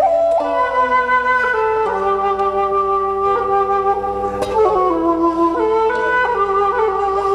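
Instrumental music with a flute melody over held accompanying notes, which cuts off suddenly at the very end.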